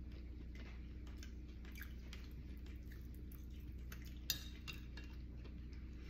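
A metal spoon clinking against a ceramic plate of soup while eating: faint small taps, with one sharp clink about four seconds in, over a steady low hum.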